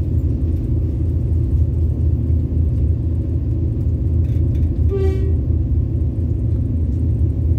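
Diesel-electric locomotive 4524 of the State Railway of Thailand, a GE CM22-7i, running with a steady low rumble. About five seconds in, a short single-pitched toot sounds for about half a second.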